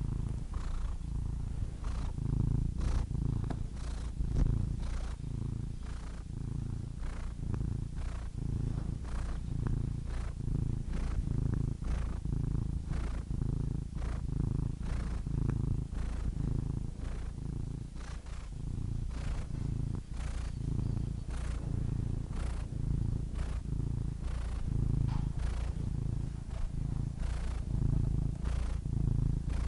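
Domestic cat purring steadily, the low rumble swelling and fading in an even rhythm.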